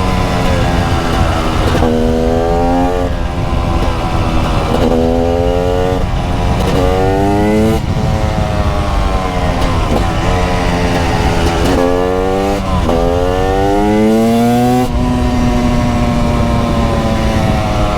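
TM SMR 300 supermoto's 300cc two-stroke single-cylinder engine under hard acceleration, its pitch climbing again and again and dropping back between rises. It settles into a steady pitch for the last few seconds.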